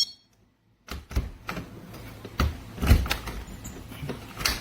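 Scattered knocks and thumps of a door and a door-mounted alarm being handled, with no alarm tone sounding. A short moment of dead silence comes near the start.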